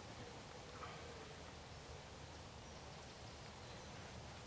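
Quiet woodland ambience with a few faint, distant bird chirps and a soft rustle about a second in.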